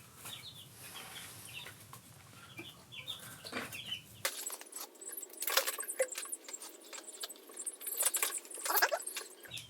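Scattered light metallic clicks and clinks of hand tools on a motorcycle clutch as the snap ring and clutch lifter plate are worked off, louder in two clusters in the second half.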